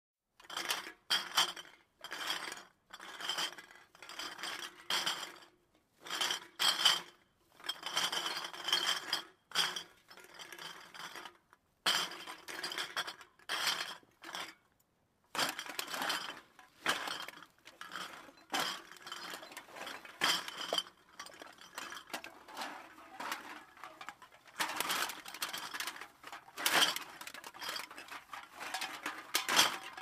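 Empty glass bottles clinking and rattling against each other, heard at a distance, in irregular bursts of ringing clinks with short pauses between them.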